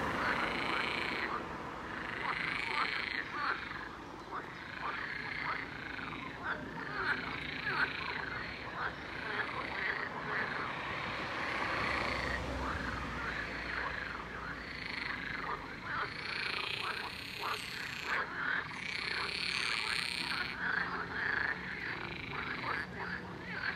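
Breeding chorus of pond frogs, many croaking and calling at once in a dense, overlapping din.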